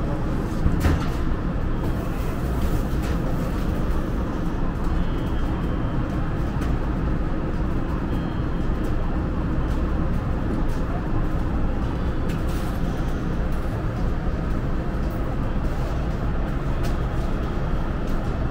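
Steady background noise of an indoor market hall: a low rumble and murmur, with a few light clicks about a second and three seconds in.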